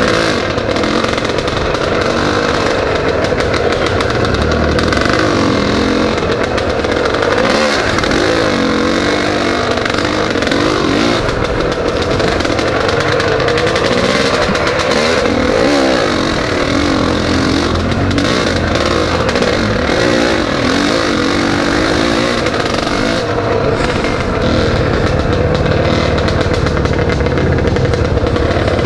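Pit bike's single-cylinder engine running under load, its pitch rising and falling over and over as the throttle opens and closes.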